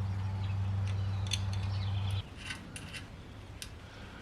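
Small metal clicks and clinks of lock washers and nuts being handled and fitted onto winch mounting bolts. A steady low hum runs under them and cuts off suddenly about two seconds in.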